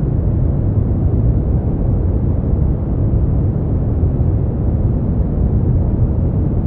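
Steady brown noise: a constant deep rumbling hiss, strongest in the low end and falling off toward the highs, with no change or pattern.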